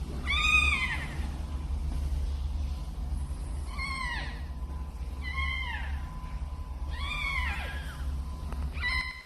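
A cat meowing five times, a few seconds apart, each meow a high call that rises and falls in pitch, the last one short near the end; a steady low hum runs underneath.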